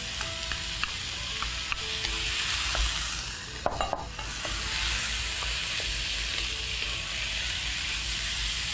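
Diced onion, mushroom slices and chopped scallion whites sizzling in oil in a wok, stirred with a wooden spatula that scrapes and taps lightly against the pan. The sizzle grows louder a little past halfway.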